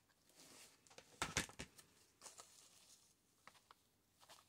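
Faint rustling and soft taps of fabric trim and paper being handled as lace is pressed into hot glue on a journal page, with a brief louder rustle about a second and a half in.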